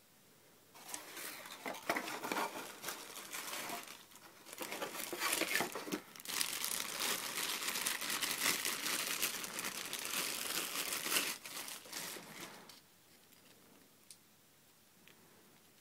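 Packaging crinkling and rustling as it is handled and pulled open, in stretches of about 3, 1.5 and 6.5 seconds, then stopping near the end.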